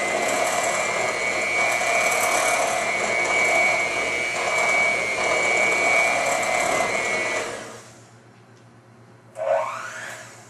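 Electric hand mixer running steadily with a steady whine, beating banana bread batter in a bowl, then switched off and winding down about three-quarters of the way through. A brief rising sound follows near the end.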